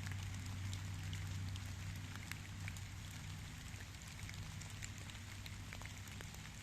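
Steady rain falling, with many separate drops ticking, over a steady low hum.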